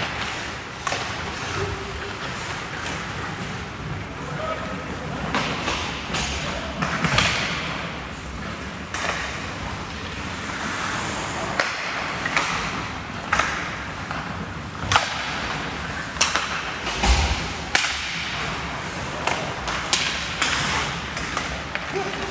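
Ice hockey in play: skates scraping the ice, with many sharp clacks and knocks from sticks and puck, and one heavy thud late on.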